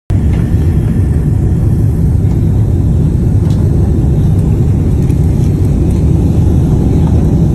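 Loud, steady rumble inside the cabin of a Boeing 777-200 airliner as it comes down onto the runway, landing with its right engine failed.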